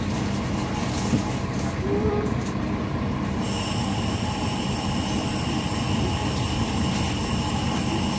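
City bus running, heard from inside the passenger cabin: a steady low rumble, with a high steady whine setting in about three and a half seconds in.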